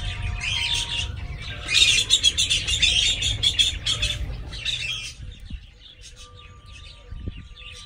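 Birds chirping in quick, dense runs over a few faint held musical tones. The chirping is busiest in the middle and thins out after about five seconds.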